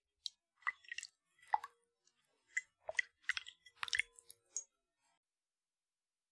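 A loose run of short clicks and taps, unevenly spaced, several with a brief ringing tone.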